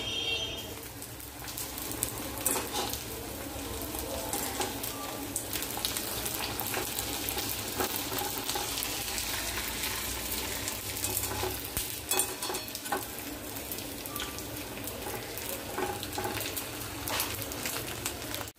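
Papads deep-frying in hot oil in a steel kadhai: a steady sizzle with many small crackles throughout.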